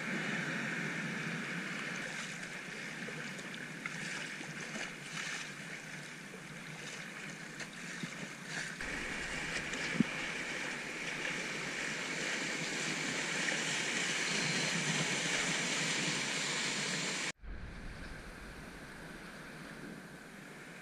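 Rushing whitewater of a muddy river at high winter flow, heard from a kayak moving downstream, with irregular splashes of paddle strokes and the hull in the waves. Near the end the sound cuts off abruptly and resumes as quieter flowing water.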